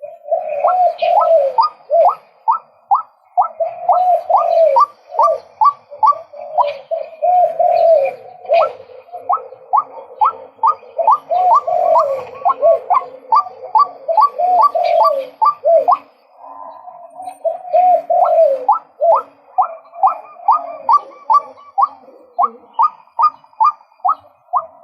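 Male white-breasted waterhen calling: a long run of sharp, rising 'kwak' notes repeated about twice a second, mixed with lower wavering notes, with a short break about sixteen seconds in.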